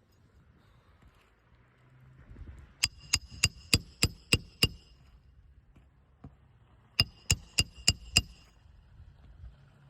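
Hammer blows with a metallic ring, driving roofing nails under asphalt shingles with a roof snake: a quick run of seven strikes about three a second, then a second run of five strikes a couple of seconds later.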